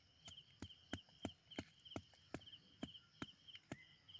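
Faint run of about ten sharp knocks at a fairly even pace, as a small wooden stick is tapped and pressed into the soil to stand upright.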